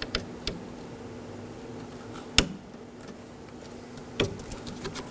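A few light clicks and taps, with one sharper click about two and a half seconds in and a quick run of small clicks near the end, as a door handle cable end is seated onto the exterior door handle inside a car door. A faint steady hum runs underneath.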